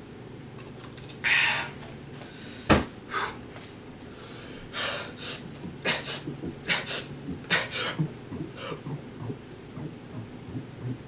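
A person gulping water in quick swallows, about two a second, between noisy breaths, with one sharp click a little under three seconds in.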